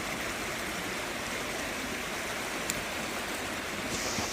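A small creek's water running with a steady rushing sound, and one faint click a little past halfway through.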